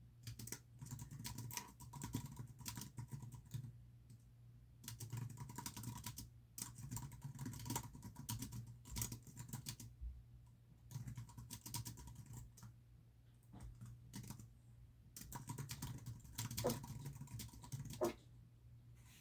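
Typing on a computer keyboard in runs of a few seconds with short pauses between, over a steady low hum.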